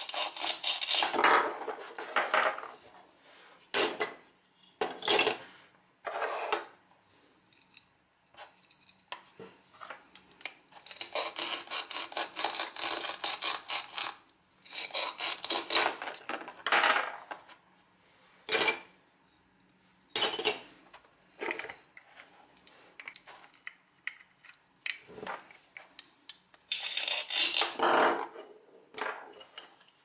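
Velcro tearing apart as a plastic toy knife cuts through velcro-joined plastic toy fruit: several rips of one to three seconds each, with short clicks and knocks of hard plastic in between.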